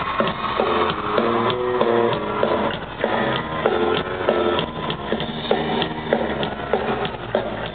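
Live rock band playing, with electric guitar chords over steady drum hits, heard from within the audience.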